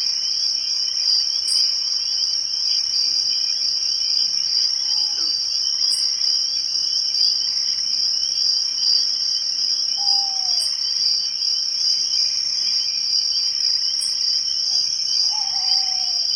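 Night insect chorus: crickets trilling steadily in several overlapping high pitches, with a brief, higher pulse about every four seconds. Three short falling whistled calls sound lower down, about five, ten and fifteen seconds in.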